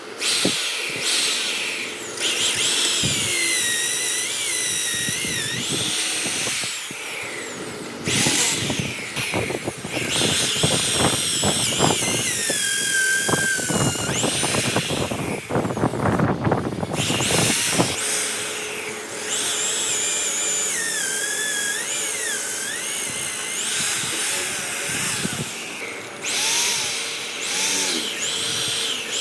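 Handheld electric power tool working wood. Its high motor whine rises and falls in pitch as it is loaded and eased off, with a stretch of rapid knocking chatter in the middle.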